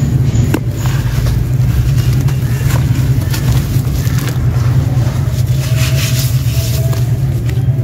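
Dry chunks of sand-cement and dirt crushed by hand, with scattered crunches, and loose grit trickling and pouring down onto a heap in a tub, the hiss of falling grit strongest in the second half. Under it runs a steady low rumble.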